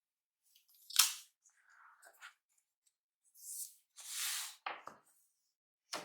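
Hands handling the laptop's packaging: a sharp click about a second in, then two short rustles of paper or wrapping, followed by a few light knocks.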